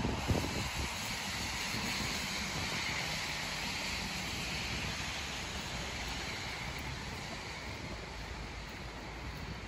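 Tyre hiss from traffic on a wet road, swelling for a few seconds and then easing off, with wind rumbling on the microphone, strongest at the very start.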